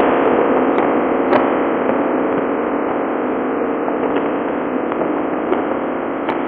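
Steady noise of a ship under way: the drone of its engines mixed with the rush of the churning propeller wake, with a few faint clicks.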